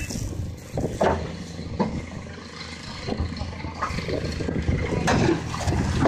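Diesel excavator engine running steadily, with several sharp knocks at irregular intervals over it.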